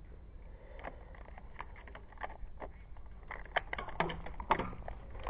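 Airsoft gunfire: irregular sharp clicks and ticks of shots and BB hits, sparse at first and busier and louder from about three seconds in, over a low steady rumble.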